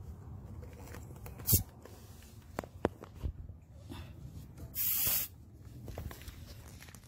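A few sharp handling clicks, then a short hiss of air lasting about half a second, about five seconds in, at the tire valve stem where the tire inflator's hose connects.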